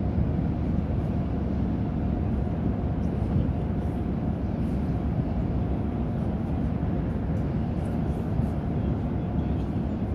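Steady low rumble of the tugboats' and ferry's engines working as the ferry is manoeuvred, with a faint steady hum above it.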